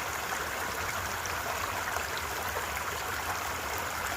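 A small woodland brook running over rocks: a steady, even babble of water.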